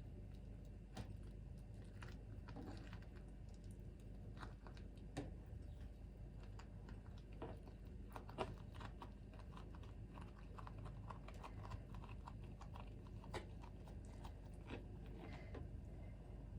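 Scattered light clicks, taps and crackles at irregular intervals, the sharpest about halfway through, over a steady low hum: small handling noises of preparing food in a kitchen.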